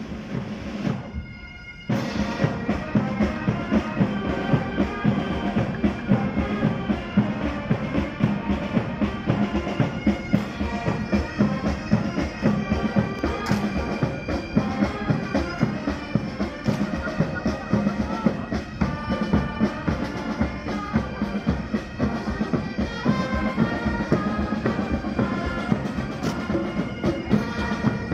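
A military pipe band starts playing about two seconds in: bagpipes sounding a melody over a steady drone, with drums beating time.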